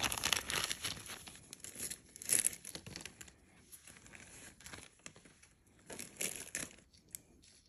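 Packaging crinkling and rustling in the hands, in clusters at the start, about two seconds in and again around six seconds in.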